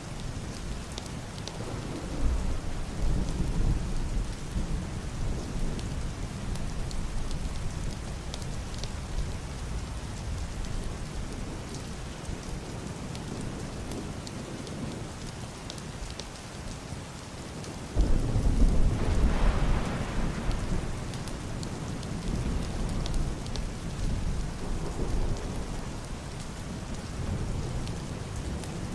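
Heavy rain on a roof and window glass, a steady hiss with scattered drop ticks. Muffled thunder rumbles low about two seconds in, and a louder thunder crack starts suddenly a little past halfway, then rolls away over several seconds.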